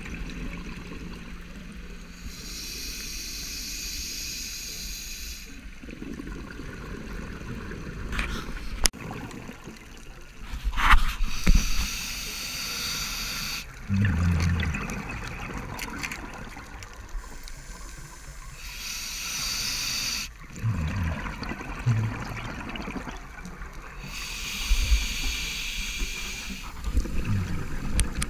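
Scuba diver breathing through a regulator underwater: a hiss on each breath in, then the low gurgle of exhaled bubbles. This repeats four times, a breath every six to nine seconds.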